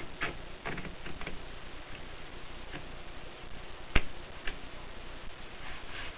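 Groma manual typewriter typing: irregular key strikes, a few close together near the start, then scattered single strikes. One much sharper, louder strike comes about four seconds in.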